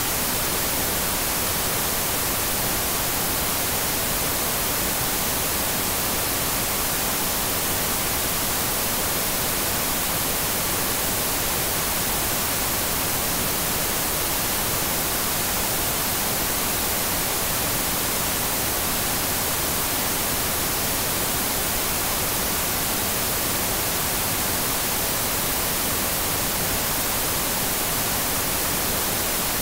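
Steady hiss of TV static (white noise), even and unchanging, brightest in the high end.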